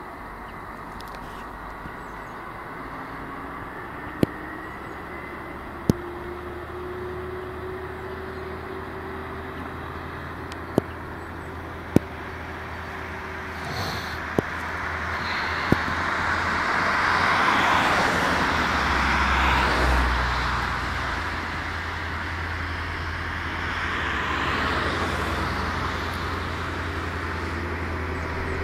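Road traffic: a slow truck with a queue of cars behind it approaches and passes, its engine a deep drone under the tyre noise, loudest about two-thirds of the way in, with more cars passing after it. Several sharp clicks in the first half.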